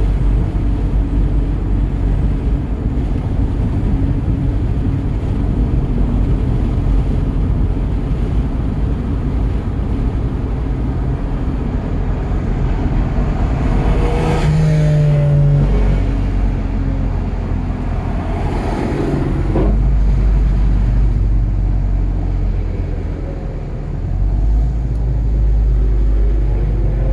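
Volkswagen Golf GTI Mk7's turbocharged 2.0-litre four-cylinder, on a 034Motorsport Stage 2 tune, running hard on track, with road and wind noise; the engine note dips briefly about three-quarters of the way through, then picks up again.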